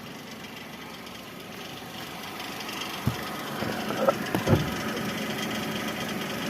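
2019 Kia Sportage engine idling with a knock in it. A few sharp, loud clunks come about three to four and a half seconds in.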